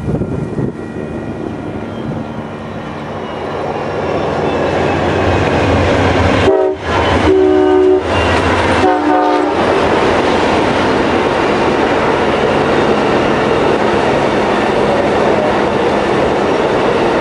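Amtrak Coast Starlight passenger train led by a GE P42DC diesel locomotive, approaching and passing. The locomotive's rumble grows louder, its horn sounds three blasts about seven to nine seconds in, and then comes the steady roll and clickety-clack of the double-deck Superliner cars going by.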